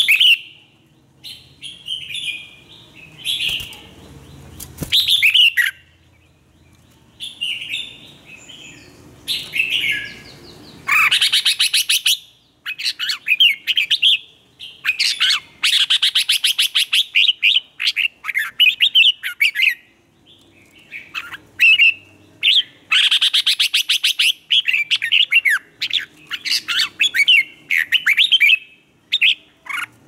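Red-whiskered bulbul singing: short, bright warbled phrases separated by brief pauses, with several longer runs of fast repeated notes in the middle and latter part.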